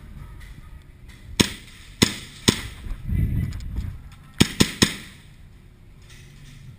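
Airsoft gun firing six sharp shots, in two quick groups of three about two seconds apart. A low rumble comes between the two groups.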